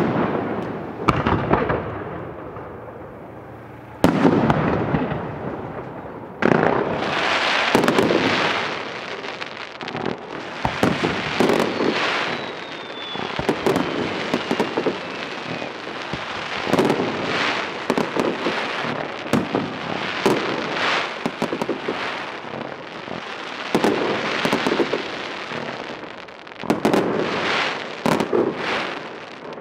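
Fireworks display: aerial shells bursting with sharp bangs one after another, building into a dense, continuous run of reports and crackling. A thin falling whistle runs through it about twelve seconds in.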